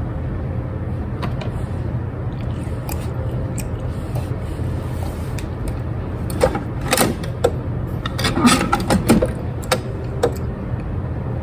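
Short plastic clicks and rattles from a single-serve K-cup coffee machine being handled and its lid and buttons worked, clustered in the second half, over a steady low hum.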